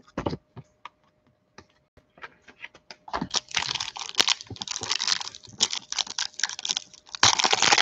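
A foil trading-card pack wrapper being torn open and crinkled: a few light scattered taps at first, then dense crackling from about three seconds in, loudest near the end.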